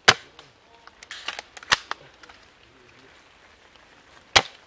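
Airsoft guns firing on a range: three sharp shot reports, about a second and a half apart and then two and a half seconds apart, with fainter clicks between the first two.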